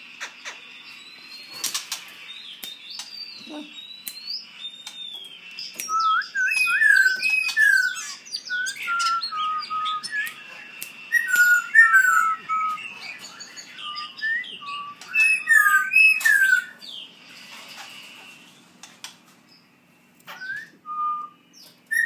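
A caged songbird singing: a fast run of varied whistled notes and chirps, loudest from about six to seventeen seconds in.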